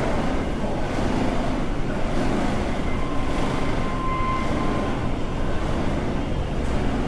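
Steady low rumble of shopping-street ambience, with a faint thin tone sounding briefly a few seconds in.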